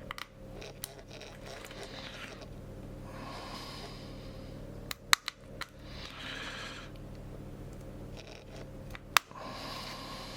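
Small screwdriver working the tiny screws out of a Fujifilm X-T2 camera's back plate: repeated short scraping turns, each about a second long, with a few sharp clicks of metal on the camera body, the loudest about halfway through and near the end.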